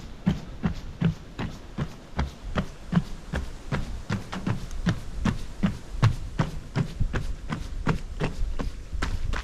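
Running footfalls on a timber boardwalk: steady, evenly spaced thumps, about three a second.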